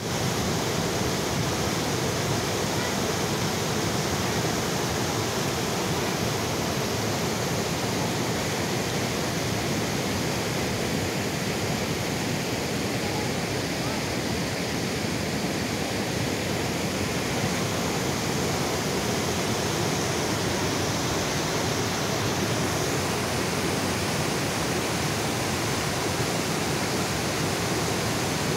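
Flooded river rushing in full spate over a low road causeway, a loud, steady, unbroken wash of churning water with waves breaking into spray.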